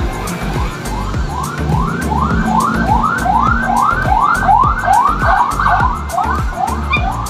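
Background music: an electronic track with a steady kick-drum beat and a repeating siren-like synth sweep that rises in pitch about three times a second.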